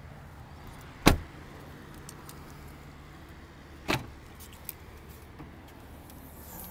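A 2011 Chevrolet Malibu's door shuts with a sharp thud about a second in. A second, softer latch thump follows about three seconds later, among a few light clicks.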